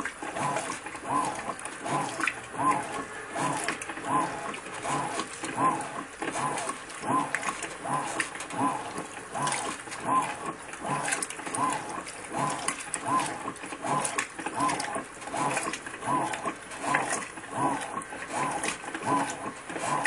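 Electrolux Ecologic LEC12 top-load washing machine agitating a load of towels and bedding in water. Each stroke of the agitator brings a rising-and-falling motor whine, a bit more than one a second in a steady rhythm, over the churn and slosh of the wet load.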